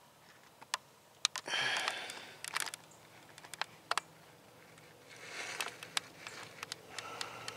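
Scattered small clicks and rustles of a handheld camera being moved, with two breathy sniffs from the person holding it: the first about one and a half seconds in, the second near five seconds in.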